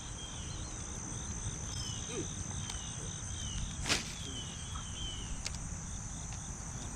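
Steady high drone of insects such as crickets, over a low rumble, with a series of short falling chirps. A single sharp click sounds about four seconds in.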